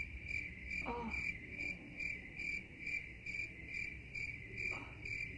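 Cricket chirping sound effect: an even, steady run of high chirps, the stock 'crickets' gag laid over an awkward pause.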